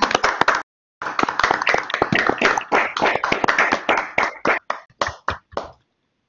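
Applause from several people clapping. It cuts out completely for about half a second near the start, then carries on and thins to a few last claps, stopping shortly before the end.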